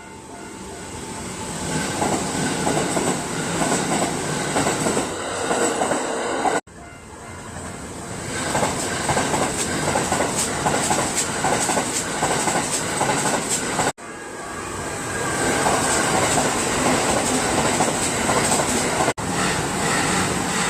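Kintetsu Osaka Line electric trains passing a level crossing, their wheels clattering rhythmically over the rail joints. The pass-bys are cut together: each rises in loudness, then stops abruptly, about every six or seven seconds.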